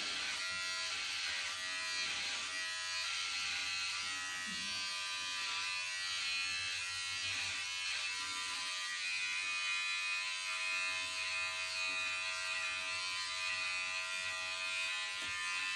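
Electric hair clippers running with a steady buzz as they are worked through thick hair.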